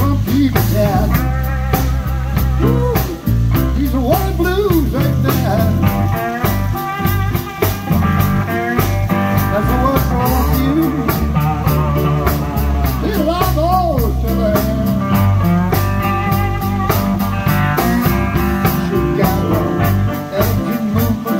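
Live blues band playing an instrumental passage: electric guitar lead with bent notes over a steady drum beat, upright bass and keyboard.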